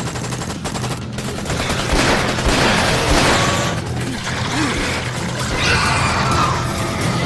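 Film gunfire: shots fired in fast succession, over a music score.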